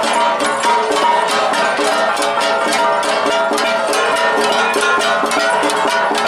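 Cordilleran flat gongs (gangsa) played as an ensemble: a fast, even rhythm of struck metal with the tones ringing on between strokes.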